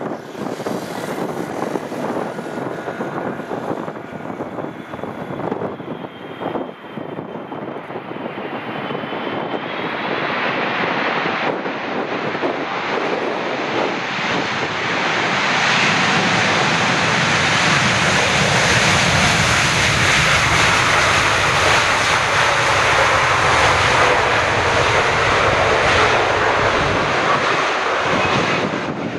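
Boeing 777F freighter with GE90 jet engines landing on a waterlogged runway. A steady jet rumble at touchdown gives way, from about ten seconds in, to the engines spooling up into reverse thrust with spray thrown off the flooded runway. The sound grows louder and brighter and stays loud through the rollout.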